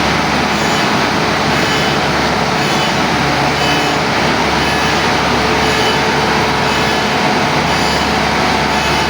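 Heavy diesel engine running steadily and loud, with a thin steady whine over it and no change in speed.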